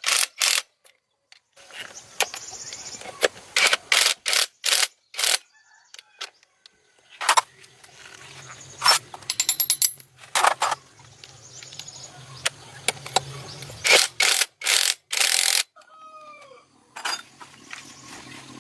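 Irregular sharp clanks and clicks of hand tools working on metal, with a low hum for several seconds in the middle. A chicken calls briefly near the end.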